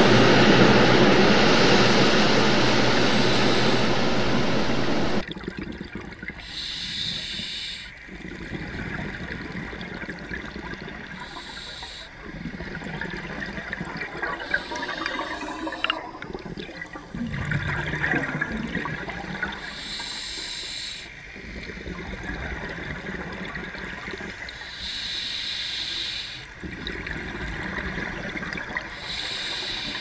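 Underwater water noise: a loud, steady rush for about the first five seconds, then quieter water with bubbling bursts every few seconds, like scuba divers' exhaled bubbles rising.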